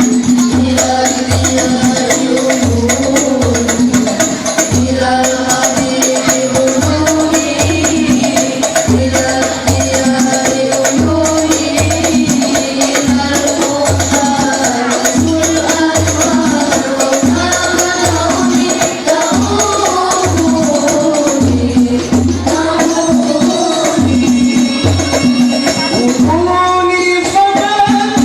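Banjari sholawat: a group of young voices singing together over hand-beaten rebana frame drums. The bass drum stroke falls about once a second, with quicker high slaps in between.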